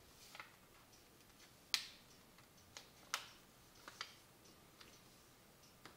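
Folded paper being pressed and creased by hand against a wooden table, giving about eight sharp, irregular clicks and crackles, the loudest a little under two seconds in.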